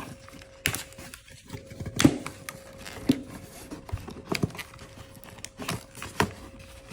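Cardboard and plastic packaging being handled and pulled open: irregular sharp taps and clicks with some crinkling, the loudest about two seconds in.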